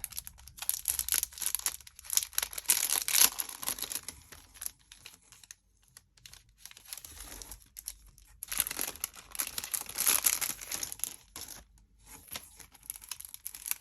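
Packaging being handled and torn open by hand, crinkling and tearing in bursts with short pauses between.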